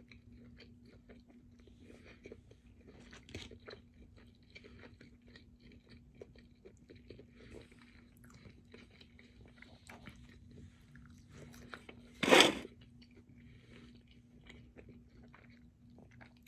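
Close-up chewing and biting of food, a steady run of small wet clicks and crunches from a person eating hand-cut fries and a burger. A single short, much louder noisy burst comes about twelve seconds in, over a faint steady hum.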